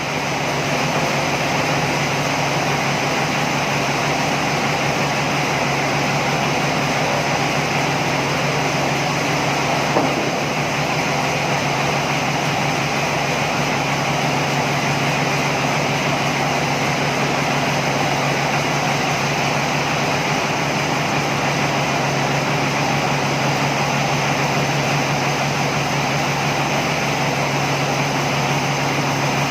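Sawmill machinery running steadily with a constant low hum and an even rushing noise, and a single small knock about ten seconds in.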